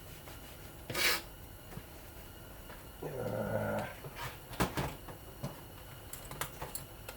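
Metal fan parts and tools being handled during a ceiling fan teardown: a short scraping hiss about a second in, a low voice-like sound lasting about a second near the middle, then a run of sharp clicks and taps.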